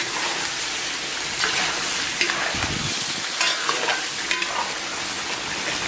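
Chicken pieces and pork belly sizzling in a wok while a metal spatula stirs and scrapes them, with short scrapes of metal on the pan over a steady frying hiss.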